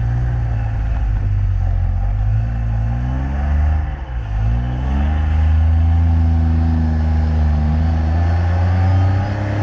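Classic car engine pulling up a steep trial section under load: the revs rise, drop sharply for a moment about four seconds in, then climb again and hold high.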